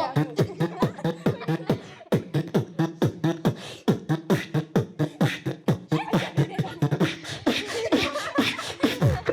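Solo human beatboxing: a fast, steady groove of mouth-made kick and snare hits at about four to five a second, many kicks dropping in pitch like a bass drop. In the last couple of seconds, hummed, gliding tones are layered over the beat, ending on a deep falling sweep.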